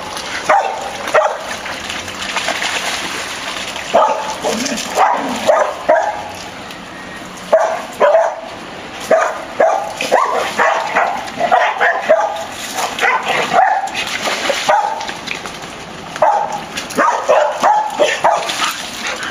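Several dogs barking and yipping in rough play, short barks coming in quick runs throughout.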